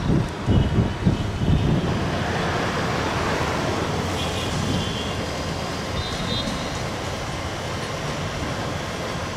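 GM B12 diesel-electric locomotive rolling slowly under its EMD 12-567C two-stroke V12 engine. A few heavy clunks come in the first two seconds as it crosses the yard points, then a steady rumble.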